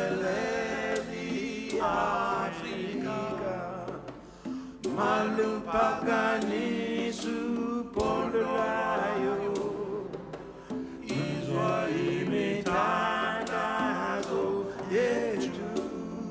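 Men's voices singing with a symphony orchestra, in sung phrases a few seconds long with short breaks between them.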